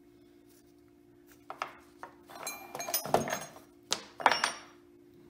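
Loose steel bolts and nuts clinking against each other and knocking on a wooden workbench as they are handled, a run of sharp metallic clinks and knocks starting about a second and a half in. A low steady hum sits underneath.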